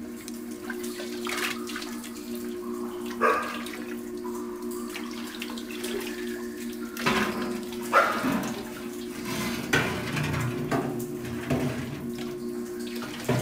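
Water running and splashing in irregular surges over a steady low drone.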